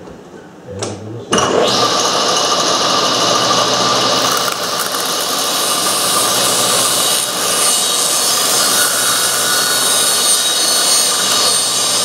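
Table saw switched on about a second in, coming up to speed and running steadily while a stack of small wooden track pads is fed through the blade with a push stick, cutting a corner off each pad.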